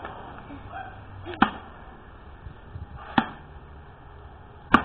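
Small axe chopping into a wooden log: three sharp strikes, about a second and a half apart.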